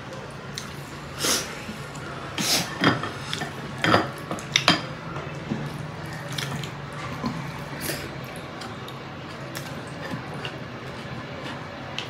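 Spoons clinking against a glass serving bowl and metal dinner plates as food is served and eaten: sharp irregular clinks, several in the first five seconds and fewer after, over a steady low hum and soft wet sounds of food being handled.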